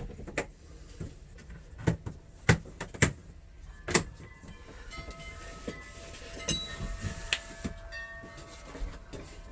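Sheet of FRP wall paneling being handled and worked into place: a series of sharp knocks and taps against the wall, then a few seconds of thin squealing as the plastic sheet rubs and scrapes.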